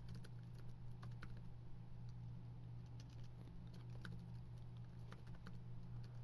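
Computer keyboard typing: scattered, irregular keystrokes as a line of code is entered, over a steady low hum.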